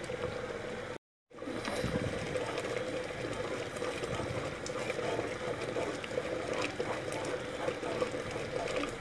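Thick tomato purée bubbling in a heavy-bottomed pot over a high flame while a wooden spatula stirs it, with small ticks and a steady hum underneath. The sound cuts out briefly about a second in.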